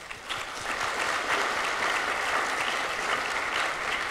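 Audience applauding, the clapping swelling in the first half second and then holding steady.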